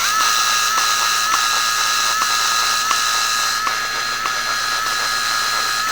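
Power drill running steadily with an even whine, driving a screw, with a light tick about every two-thirds of a second; it stops right at the end.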